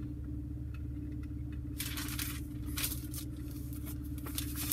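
Steady low hum of a car idling, heard from inside the cabin, with a few soft rustles and scrapes about two and three seconds in.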